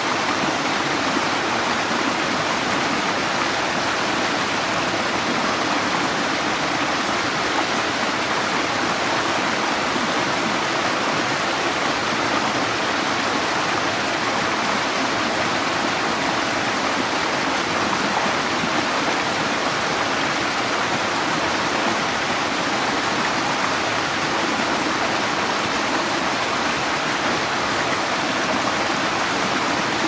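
Small forest stream splashing down a short cascade over rocks, a steady, even rush of water.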